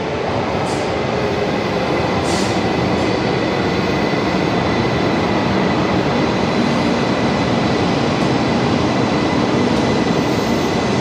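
E2 series Shinkansen train pulling into an underground station platform. The cars run past with a steady rushing rumble that grows slightly louder, over a faint steady high tone.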